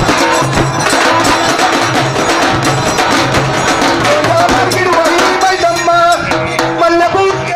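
Live devotional Telugu folk song to Yellamma: a man singing into a microphone through a loudspeaker over steady beats on a two-headed barrel drum struck with a stick, with other percussion. The sung melody wavers and turns in the second half.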